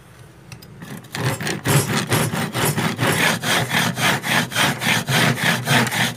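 Hand saw cutting through a plywood board in quick back-and-forth strokes, about three a second, starting about a second in.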